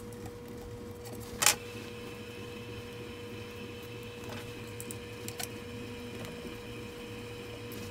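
Small metallic clicks of a hand driver and screw being worked in the Taig mill's motor mount adapter, the sharpest about a second and a half in, a few lighter ones later. A steady faint whine runs underneath.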